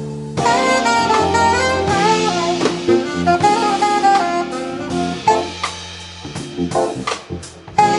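Live jazz quartet playing: a saxophone carries a moving melody over keyboards, electric bass and drum kit. The band drops softer a little after six seconds, then hits back in at full level at the end.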